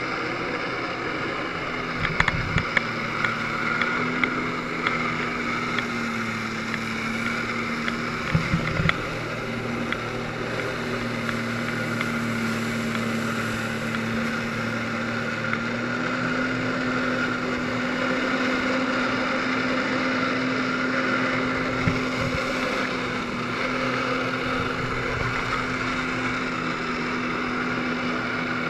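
Personal watercraft engine running at high revs to drive a Flyboard's water jets: a steady hum over rushing water, its pitch stepping up slightly a few times. A few short knocks about two seconds in and again around eight seconds.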